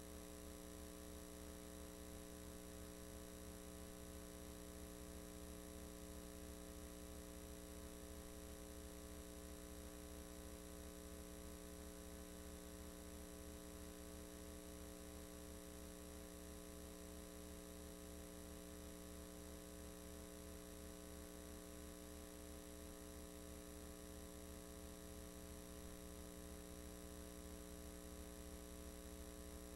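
Faint, steady electrical mains hum sounding on many pitches at once, with a fast throb in its lowest part; nothing else is heard.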